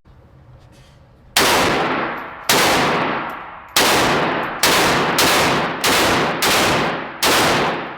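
Glock 19 9 mm pistol fired eight times in slow, then quickening, succession. Each shot rings out and trails off before the next.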